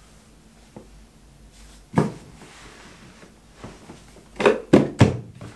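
Thuds and knocks from stacked Rubbermaid Brute plastic tote boxes taking a man's weight as he sits and shifts on the lid and grips its edges. There is one thump about two seconds in, then a quick run of three knocks near the end.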